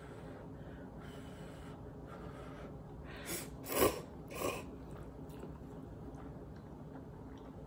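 Three short noisy slurps of hot instant ramen noodles in quick succession, the middle one loudest.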